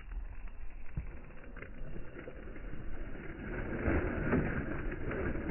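Hickory hinge wood creaking and crackling as its fibres strain and tear in the felling cut, a run of small cracks that grows louder about two thirds of the way in.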